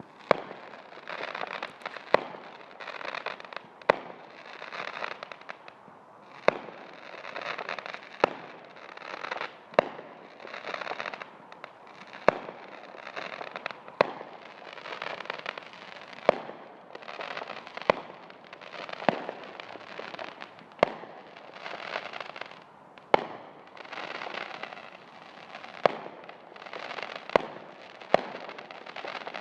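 Fireworks going off in a steady barrage: a sharp bang about every two seconds, each followed by a second or so of crackling.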